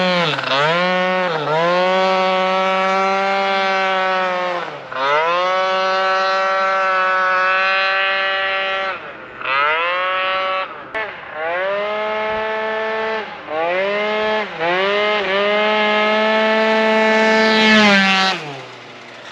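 Tuned two-stroke scooter engine, a Piaggio NRG with a Stage6 70 cc kit, revving hard under throttle and held high for long stretches, with several short dips in revs as the throttle is eased and opened again; the revs fall away near the end. It is running on a freshly fitted, richer 146 main jet.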